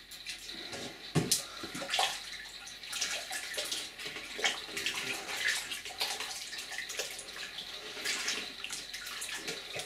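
Water sloshing and splashing in a plastic tote as a hand stirs through soaked granulated stone-wool grow medium, mixing in liquid nutrient. Irregular splashes, the sharpest about a second in.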